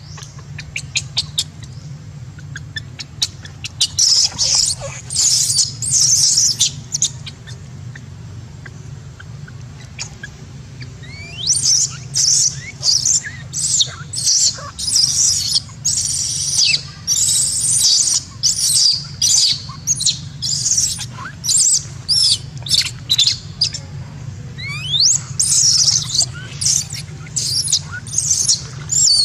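Newborn macaque giving shrill, high-pitched distress cries in repeated bursts. A few come in the first several seconds, then after a short lull a long, nearly unbroken run of cries follows, lasting to the end.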